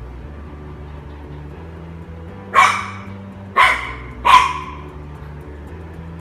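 French bulldog puppy barking three times in short, sharp yaps, starting about two and a half seconds in, the last two close together, over soft background music.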